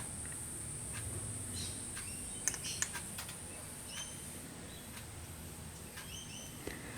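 Faint steady high-pitched chirring of crickets, with a few light clicks about two and a half seconds in and a couple of short high chirps later on.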